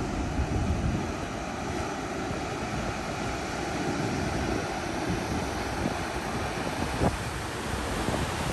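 Storm-swell surf breaking and washing up a rocky beach: a steady rush of whitewater, mixed with low rumbling wind buffeting the microphone. A single short knock about seven seconds in.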